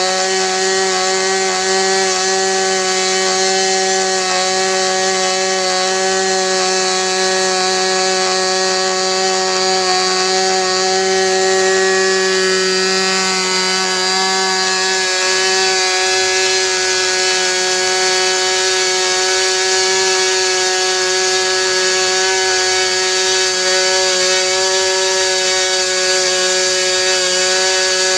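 OS 46AX two-stroke glow engine on a model airplane running at a steady speed, held on a rich needle setting for break-in.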